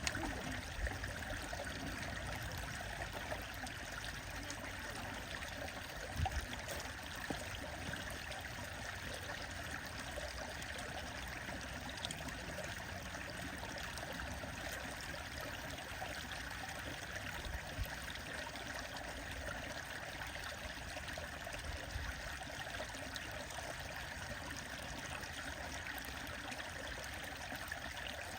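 A stream running steadily: an even rush of flowing water, with a few faint knocks here and there.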